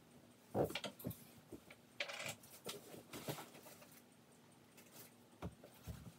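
Hugger-style ceiling fan running with a faint steady motor hum, under scattered light clicks and ticks at irregular intervals.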